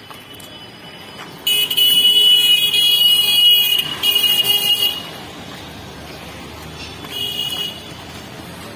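A high-pitched vehicle horn honking three times: a long honk of about two seconds, a shorter one right after it, and a brief one near the end, over steady street noise.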